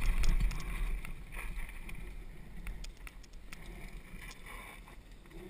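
Downhill mountain bike riding a dirt forest trail: wind buffeting the camera microphone and the bike rattling over the ground, with scattered ticks and knocks. Loud at first, the noise dies away over the next few seconds.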